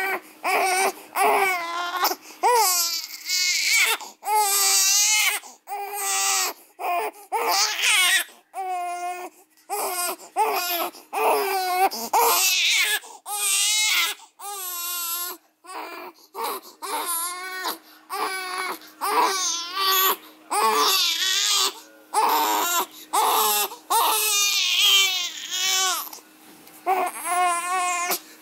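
A young infant crying hard in repeated wails of a second or two each, with short breaths between; some wails waver in pitch.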